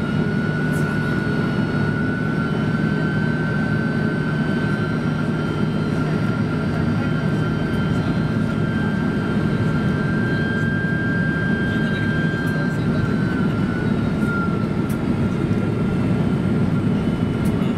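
Cabin noise of a Boeing 767-300 airliner in flight, heard from a passenger seat: a steady roar of jet engines and airflow, with a high whine and a low hum held steady over it.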